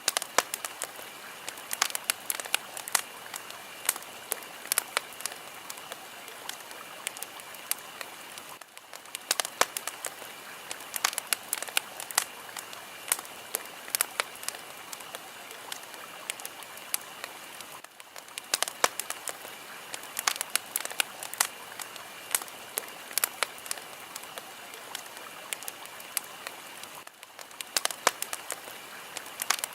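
Fire crackling steadily: a constant hiss full of irregular sharp pops and snaps, with a brief dip in level about every nine seconds.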